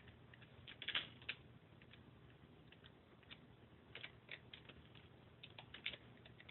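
Faint computer keyboard typing: irregular key clicks in small clusters with short pauses, as code is entered.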